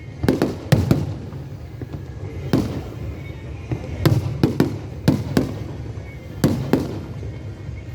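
Aerial firework shells bursting: about ten sharp bangs at uneven intervals, several in quick pairs, over a steady low background rumble.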